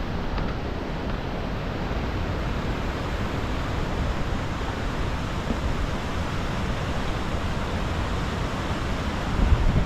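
Steady outdoor wind rushing and buffeting the microphone, an even noise that is heaviest in the low end.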